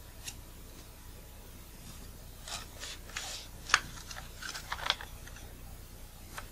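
Nikon Nikkor 24-85mm VR lens barrel parts rubbing, scraping and clicking as the lens is turned in the hands to seat a part in its groove, with a sharper click a little past the middle.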